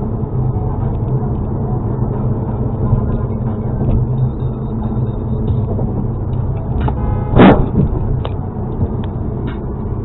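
Steady road and engine noise heard from inside a car at highway speed, with one short, loud honk of a car horn about three-quarters of the way through.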